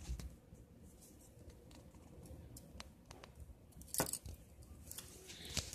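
Quiet handling noise: scattered light clicks and rustles, with one sharper click about four seconds in.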